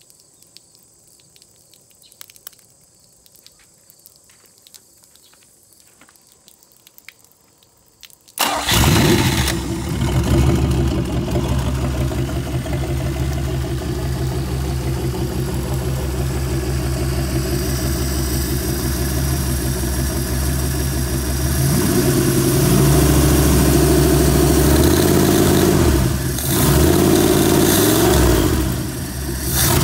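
1962 Oldsmobile Jetfire's turbocharged aluminum V8 on a test stand firing up about a third of the way in and running, which the owner says runs good. Its speed shifts a little past the middle and dips twice near the end.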